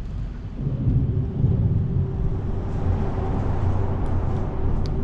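Low, steady rumble of vehicles crossing the bridge overhead. It swells about a second in and then holds.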